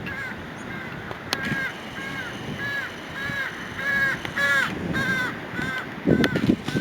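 A crow calling over and over, more than a dozen short caws at about two a second, loudest past the middle. Low rustling noise comes in near the end.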